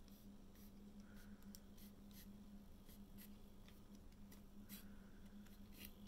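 Faint, irregular rustling and scratching of long hair against a curling iron's barrel as the hair is held wound round it and slid off, over a steady low hum.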